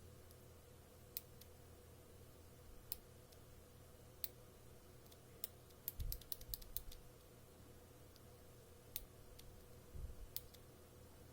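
OUTEMU mechanical keyboard switches being pressed: faint, scattered single clicks, with a quick run of several presses about six seconds in and a couple of low thumps.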